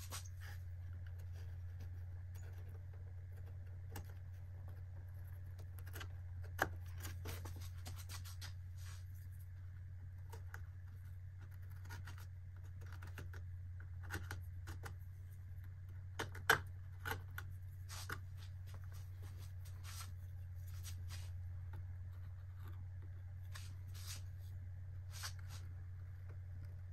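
Brush and fingers scratching and rubbing over a cottonwood bark carving as a brown liquid finish is worked in: scattered light scratches with a couple of sharper taps, about a third of the way in and past the middle, over a steady low hum.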